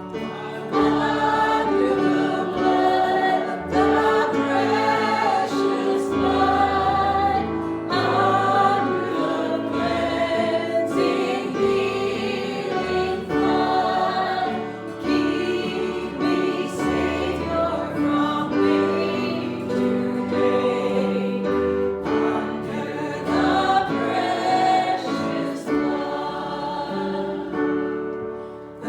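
Worship singing: a group of voices singing a church song with instrumental accompaniment and sustained bass notes.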